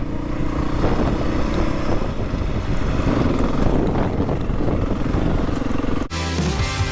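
Beta 430 RR-S single-cylinder four-stroke dirt bike engine running hard while riding through whoops. About six seconds in it cuts off abruptly into rock music.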